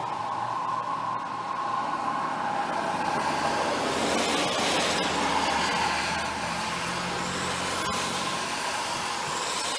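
Cars driving past on a rain-soaked road, their tyres hissing through the water over a steady background of rain. Passes swell up about four seconds in and again near the end.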